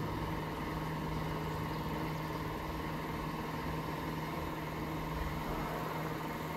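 An engine idling steadily: a constant hum over a low rumble.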